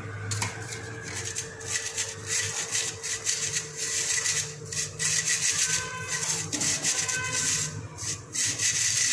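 A hand rubbing coarsely ground roasted chickpeas (sattu) across a fine steel mesh sieve: a continuous gritty rasping in uneven back-and-forth strokes.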